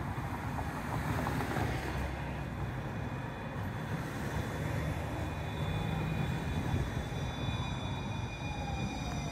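Electric streetcar approaching and slowing into the stop over a steady low rumble of street traffic. In the last couple of seconds its motor whine falls in pitch as it slows, with thin steady high tones.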